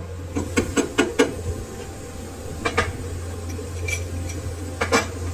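Metal clinking and knocking: a quick run of about six clinks in the first second and a half, then one near three seconds and another near five. Under them runs a steady low hum.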